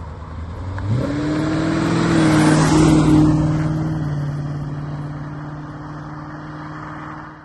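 1985 Aston Martin V8 accelerating past, its engine note rising in pitch about a second in and loudest as the car goes by. The note then holds steady and fades as the car pulls away, and cuts off abruptly at the end.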